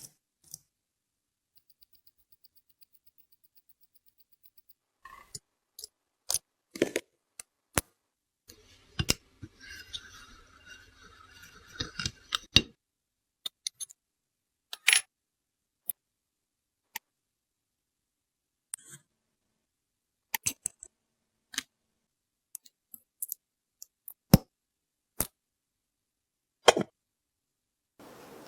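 Small metal watch parts and watchmaker's tools clicking and clinking against each other and a bench, in scattered sharp taps with silence between, while a Rolex Daytona 4130 movement is taken apart. About nine seconds in there are a few seconds of faint scraping under the clicks.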